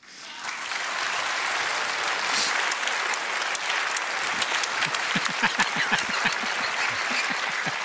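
Studio audience and judges applauding a stand-up comedian's line, the clapping starting suddenly and holding steady.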